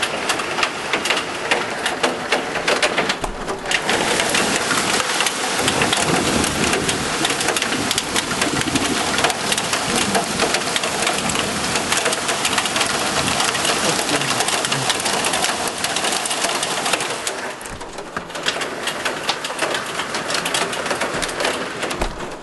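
Hail and heavy rain pelting the window glass and sill: a loud, dense patter of countless small hits that eases briefly near the end.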